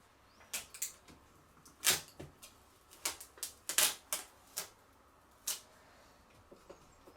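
Irregular sharp clicks and light taps of small tools and laptop parts being handled, about a dozen spread over several seconds, the loudest about two and four seconds in.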